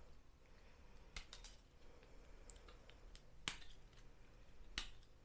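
Utility knife paring flash off a hard knob of re-melted milk-bottle plastic: faint, scattered snicks and scrapes of the blade, the sharpest about three and a half seconds and just under five seconds in.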